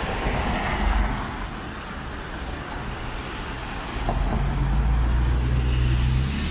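City street traffic: a vehicle passes early on, and from about four seconds in a heavy vehicle's engine runs with a louder low, steady drone.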